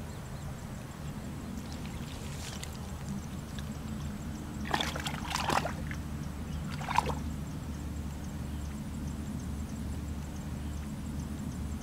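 Hands sloshing and splashing through shallow muddy water while groping in the mud for fish, with a few sharper splashes about halfway through and one more a couple of seconds later, over a steady low rumble.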